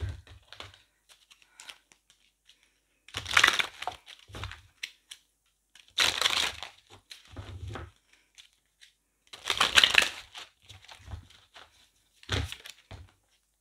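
A deck of oracle cards being shuffled by hand: three main bursts of shuffling, each one to two seconds long, with lighter card handling and soft knocks in between.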